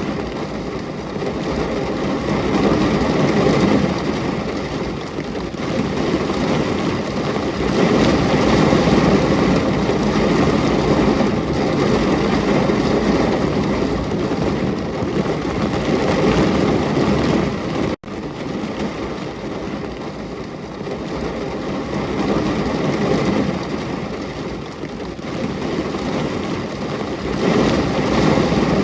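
Steady heavy rain, a dense even hiss that swells and eases in loudness, broken by a split-second dropout about two-thirds of the way through.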